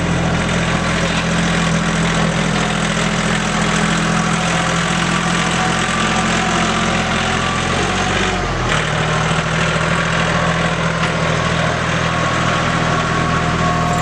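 A vehicle engine running steadily close by. Its pitch dips and shifts briefly about eight seconds in, then it settles to a steady run again.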